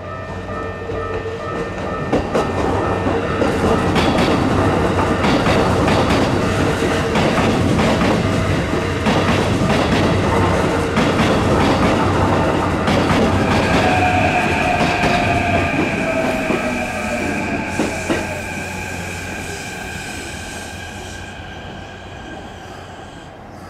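A Keikyu Line electric train running through the station, its wheels clattering rapidly over the rail joints. The noise swells over the first few seconds and holds for about fifteen seconds. A steady high whine joins about halfway through, and the sound then fades away as the train moves off.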